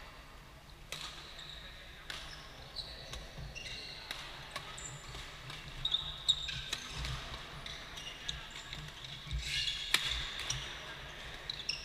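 Badminton rally: rackets hitting the shuttlecock in sharp pops a second or two apart, the loudest about six and ten seconds in, with sports shoes squeaking on the court floor and voices in the background, echoing in a large sports hall.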